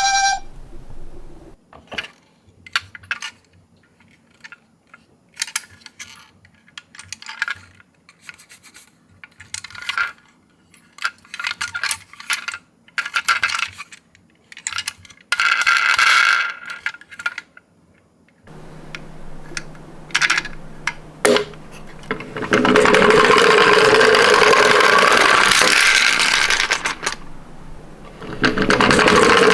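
Die-cast Tomica miniature ambulances clinking and clattering against each other in a string of sharp clicks. About two-thirds of the way through, this turns into a louder continuous rattling run of many small metal cars rolling together down a slope.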